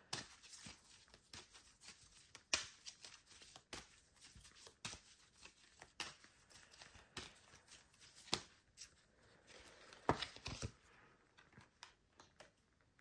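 A deck of tarot cards being shuffled by hand: a run of soft, irregular card flicks and slaps that thins out near the end.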